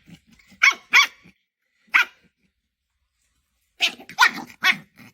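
A dog barking in short sharp barks: two in quick succession about a second in, a single bark near two seconds, then a quick run of three or four near the end.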